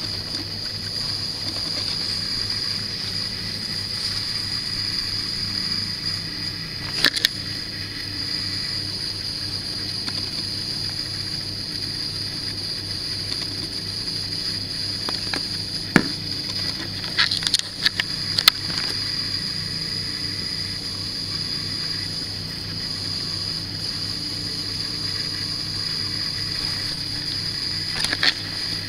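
Steady low hum with a constant high-pitched whine over it, broken by a few sharp clicks: one about a quarter of the way in, a cluster a little past the middle, and more near the end.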